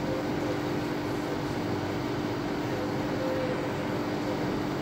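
A steady mechanical hum with a constant low drone, at an even level.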